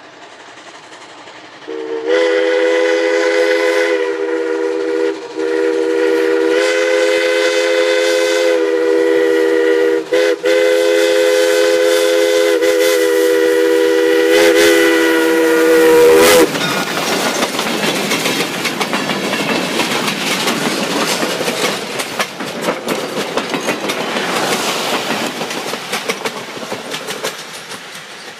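Steam locomotive's chime whistle blowing a long chord of several notes at once, broken by a few brief gaps, as the train approaches. About sixteen seconds in the whistle stops and the locomotive and its passenger coaches roll past with a loud clatter of wheels over the rails, fading near the end.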